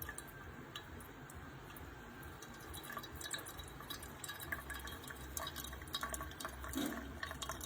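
Sboly single-serve coffee maker dispensing brewed coffee into a cup: a steady trickle and dripping of liquid, growing busier and a little louder about three seconds in.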